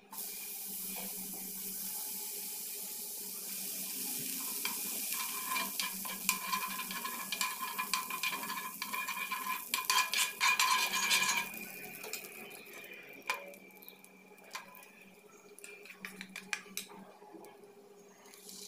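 Fat melting and sizzling on a hot cast-iron griddle while a metal spoon scrapes and spreads it, with clicking and scraping strongest in the middle. Later the sizzle is quieter, with a few light knocks.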